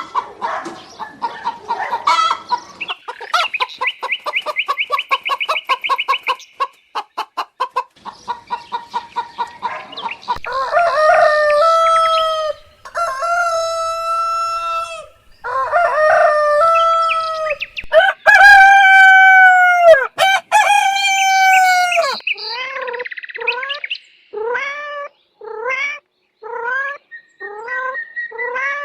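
Hens clucking and cackling in quick runs of short notes, then roosters crowing, five long calls of one to two seconds each. Near the end come short repeated calls, about one a second, from a different animal.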